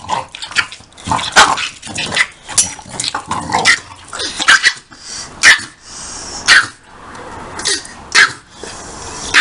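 Dogs barking and growling at rough play, a small dog and a large one: a busy string of short, sharp barks, thinning to about one a second in the second half.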